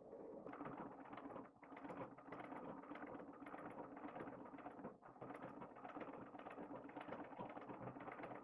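Butterfly treadle sewing machine running with a rapid, steady clatter from its needle mechanism, dropping off briefly twice.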